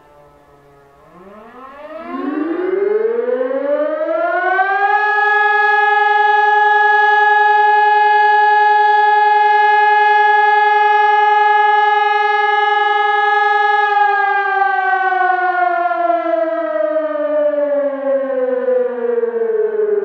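HELIN HES 1200 electronic siren (1200 W) sounding. Its tone rises over about four seconds, holds steady for about nine seconds, then slowly falls, after the last of a previous falling tone dies away in the first second.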